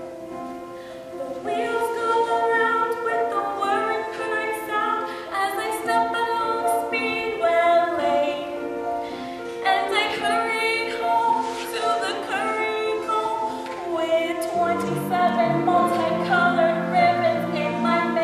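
A female vocalist singing a slow song with held notes over accompaniment. The singing grows louder about a second and a half in, and a lower part joins near the end.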